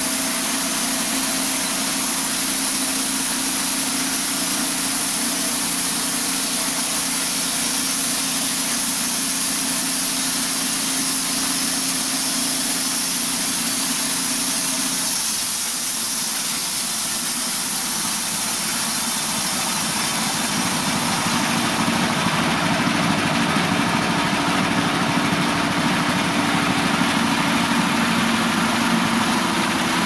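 Norwood Super LumberMate 2000 portable band sawmill running. Its engine holds steady for the first half. About halfway through the sound changes as the band blade starts into the elm log, and it grows a little louder and noisier as the cut goes on and sawdust sprays out.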